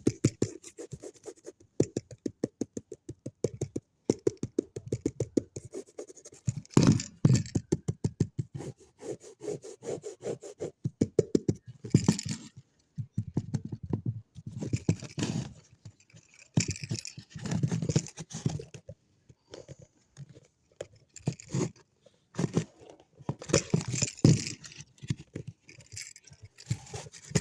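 Fingers tapping and scratching on a handbag for ASMR, in quick runs of taps and scrapes with short pauses between them.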